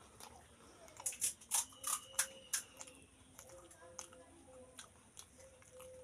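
Several short, crisp crunches of fried pani puri (fuchka) shells in the first half, then a few fainter crackles.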